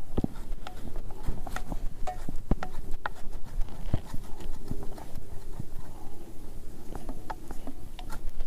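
Eggs frying in a small pan over an open fire: irregular crackling and popping, with many sharp clicks scattered throughout.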